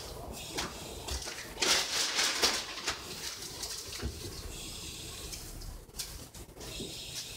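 Paper envelopes being handled and shuffled, a rustling that is loudest about two seconds in, with a few short scrapes and taps.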